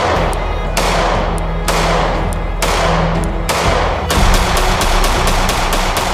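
Glock G43X 9mm pistol fired at a steady pace, about one shot a second, then a quicker string of shots about four seconds in, over background music.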